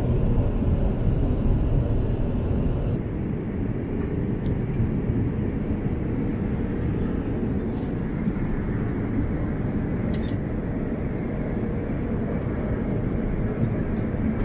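Steady roar inside a Boeing 787-9 airliner's cabin in flight: engine and airflow noise, with a couple of faint clicks.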